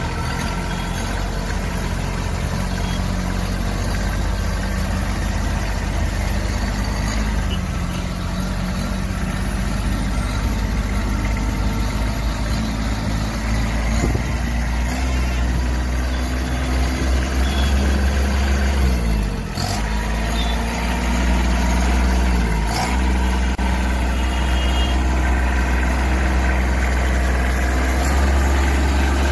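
Kubota B2441 compact tractor's three-cylinder diesel engine running steadily as the tractor is driven slowly. The engine note dips briefly twice in the second half.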